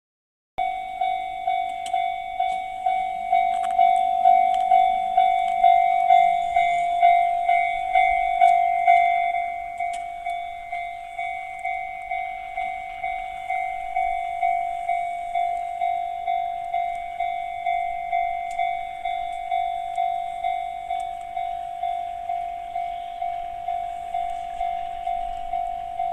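Electronic level-crossing alarm of the JR East 'Tohoku' type, sounding a single bell-like tone over and over in a steady rhythm. It is louder for the first third, then settles a little softer.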